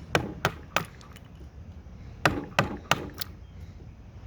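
A hatchet chopping into a cedar block: seven sharp strikes, three in quick succession near the start, then four more about two seconds in.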